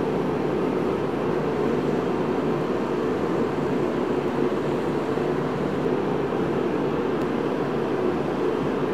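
Steady blowing hum of a running shop heater, even and unchanging, heaviest in the low middle range.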